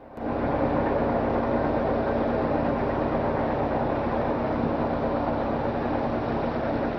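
A vehicle engine running steadily, a low rumble with a faint hum, fading in from silence at the very start.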